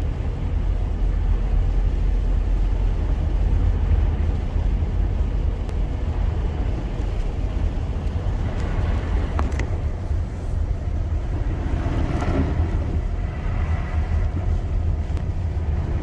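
Steady low rumble of a car driving on a snowy highway, heard from inside the cabin: engine and tyre road noise.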